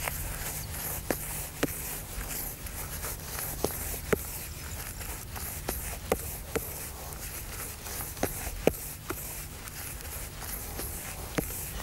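Hands mixing damp fishing groundbait in a bowl, worked to a fairly dry consistency: soft rustling with irregular light clicks and knocks, roughly one a second, over low steady background noise.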